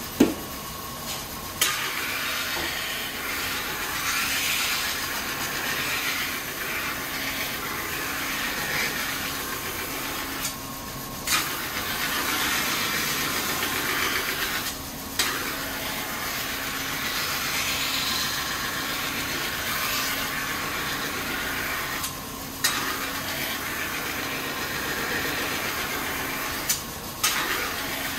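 A kitchen knife blade ground against a spinning, motor-driven wheel stone: a steady grinding hiss in long passes of several seconds over a steady motor hum. The passes break off briefly four or five times, each restarting with a sharp click as the blade meets the stone again.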